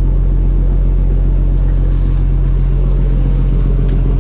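Fishing trawler's engine running steadily with a deep, even drone, and a faint tick near the end.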